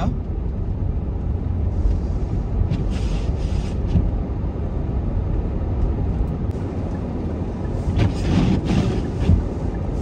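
Steady low rumble of a car driving on a snow-covered road, heard from inside the cabin, with brief hissing swells about two to four seconds in and again near the end.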